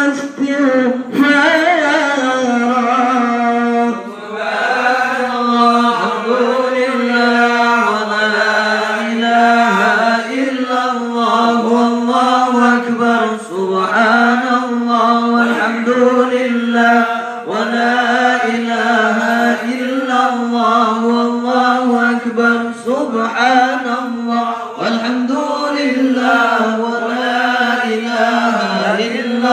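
Men chanting an Arabic sholawat through a microphone, a melismatic melody with long, wavering held notes.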